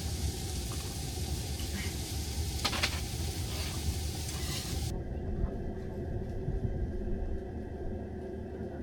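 A steady sizzling hiss over a low rumble. About five seconds in the hiss cuts off abruptly, leaving only the rumble.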